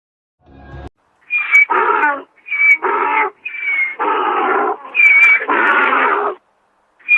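A farm animal calling over and over: four two-part calls starting about a second in, each a short high note followed by a longer, harsh, lower note.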